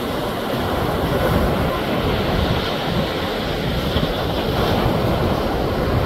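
Sea surf washing onto a beach: a steady rush of breaking waves that swells gently now and then.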